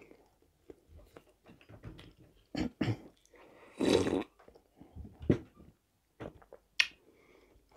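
Quiet eating sounds: soft chewing and small clicks, with one louder slurping sip of tea from a glass mug about four seconds in.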